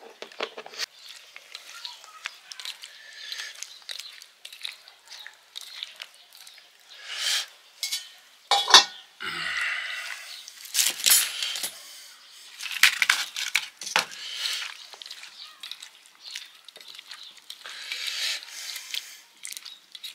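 Radish strips being mixed and squeezed by hand into a wet spiced pickle in a small steel bowl: short wet squelching rustles with scattered clinks and taps of fingers against the metal bowl, the sharpest clink about nine seconds in.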